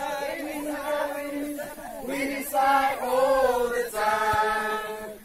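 A group of voices chanting together in drawn-out held notes, several pitches overlapping, breaking off near the end.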